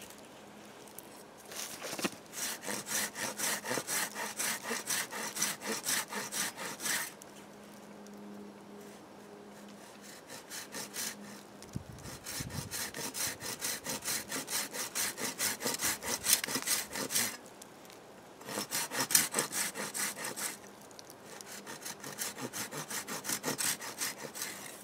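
Folding hand saw cutting through a dry, dead standing tree trunk about three inches thick, in quick back-and-forth strokes. The strokes come in four runs of several seconds each, with short pauses between them.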